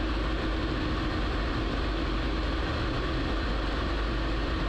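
Light aircraft's piston engine and propeller droning steadily in the cockpit during descent.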